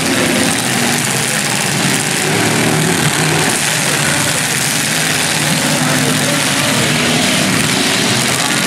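Demolition derby cars' engines running together in a loud, steady din, their pitch rising and falling now and then as they rev.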